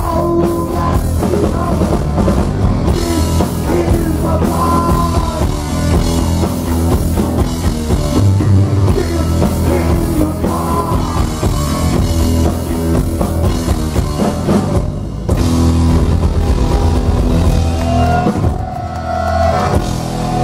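Heavy metal band playing live at full volume: distorted electric guitar over bass and a pounding drum kit. Near the end a single long note is held.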